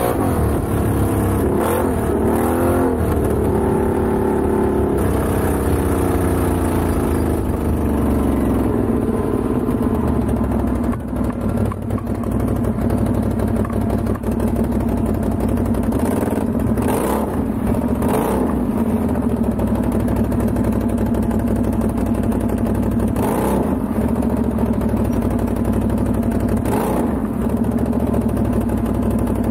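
Can-Am XMR ATV engine revving in rising and falling sweeps during the first few seconds, then running steadily at a lower speed, with a few brief rushes of noise in the second half.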